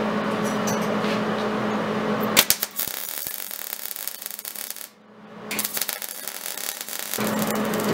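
A steady hum, then about two and a half seconds in a MIG welder strikes its arc and runs a continuous seam weld around a horseshoe on a steel plate: a dense, steady crackling hiss. The crackle breaks off briefly near the middle, resumes, and stops about a second before the end.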